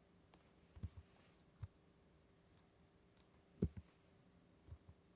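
A few faint, scattered clicks of a computer mouse and keyboard, the loudest about three and a half seconds in.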